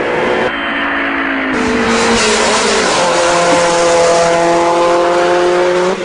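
Race car engine sound effect: engines running at high revs with a steady pitched drone. The pitch slides about two seconds in, like a car passing.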